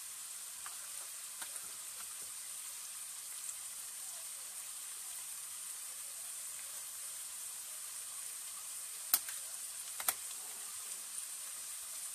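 Chopped onions, green chillies and garlic sizzling in hot oil in a frying pan, a steady even hiss. Two sharp clicks come about a second apart near the end.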